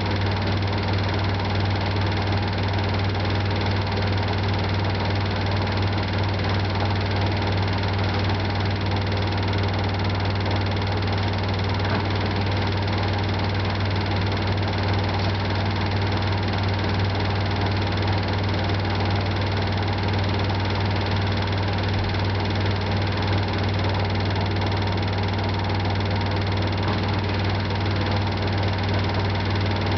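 LG 12B8ND washing machine in its spin cycle, running with a steady drone that holds at one level and pitch.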